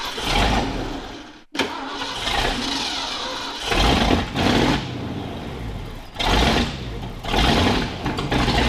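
1988 Ford Bronco engine cranking and starting after sitting unstarted for months, then running with several surges in loudness.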